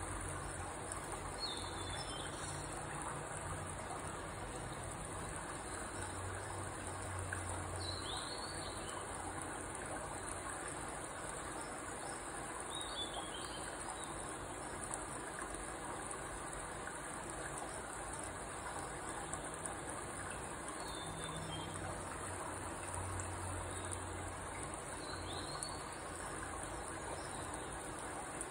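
Steady high-pitched insect trilling with a handful of short bird chirps scattered through it, over a low hum that comes and goes.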